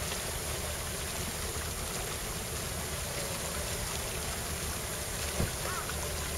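Steady harbour ambience at the water's edge: an even wash of wind and water over a low, steady hum. There is a single faint knock about five seconds in, and a couple of faint short chirps near the end.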